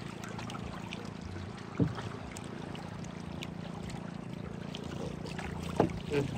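Small engine of a motorized bangka running steadily under way, over a wash of water and wind along the hull. Two short thumps, one about two seconds in and one near the end.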